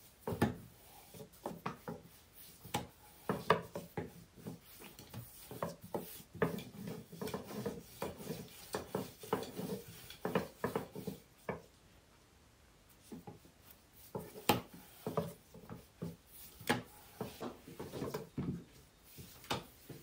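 A thin wooden rolling pin rolling out yeast dough into a thin sheet on a table: irregular rubbing and wooden knocks as the pin rolls back and forth, with a short pause about twelve seconds in.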